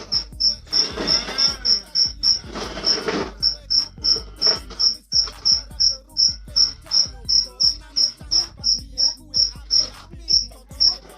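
Insect chirping steadily, a short high chirp about three times a second, with a brief voice-like sound twice in the first three seconds.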